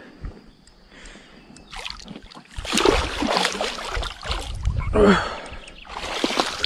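Large hooked fish thrashing and splashing at the surface beside an inflatable boat, starting about two and a half seconds in after a quieter stretch, loud in bursts.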